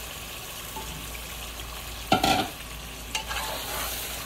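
Curry masala sizzling in a pot over a gas burner as potato chunks and drumstick pieces are stirred into it. A loud clatter against the pot comes about two seconds in, then a smaller knock about a second later.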